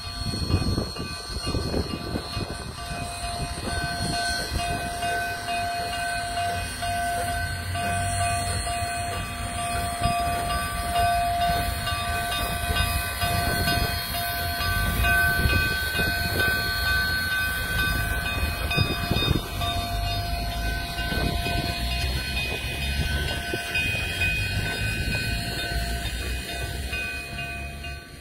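Cumbres & Toltec No. 489, a narrow-gauge steam locomotive, rolling slowly past with an uneven low rumble of exhaust and running gear and a steady high-pitched squealing ring held for long stretches.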